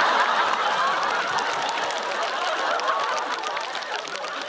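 Studio audience laughing, with scattered clapping, loud at first and gradually dying down.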